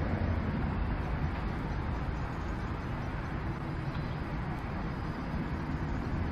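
Steady low rumble of outdoor city background noise picked up by a rooftop webcam microphone, mostly distant road traffic.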